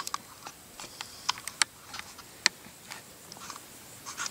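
About a dozen faint, sharp clicks and ticks at irregular intervals over a quiet background, the strongest about two and a half seconds in.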